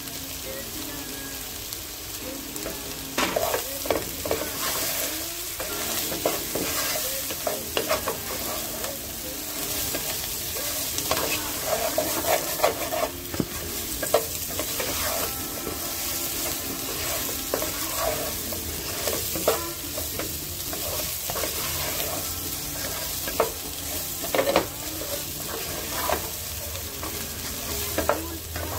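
Boiled potato pieces frying in oil in a pan with a steady sizzle, while a spatula stirs and scrapes them against the pan, giving irregular scraping knocks.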